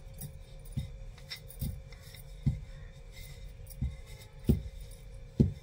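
Wooden rolling pin rolling out a thin stacked dough sheet for spring-roll wrappers: soft irregular knocks and rubbing on the rolling board, about one knock a second.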